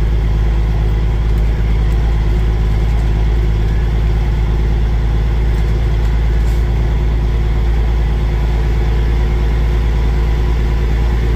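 Semi truck's diesel engine running steadily while driving, heard from inside the cab: a constant low drone with road noise.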